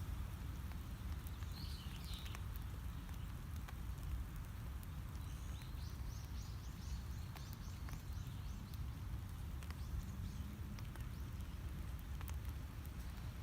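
Outdoor ambience: a steady low rumble with scattered faint ticks. A bird gives a short high call near the start, then a rapid run of high notes lasting about two seconds, roughly halfway through.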